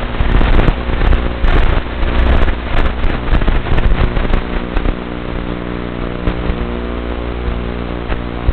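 Whine of a 62-gram micro quadcopter's 8.5 mm brushed motors and propellers, heard through crackling radio static. The crackle is dense for the first few seconds, then the whine settles into a steadier hum.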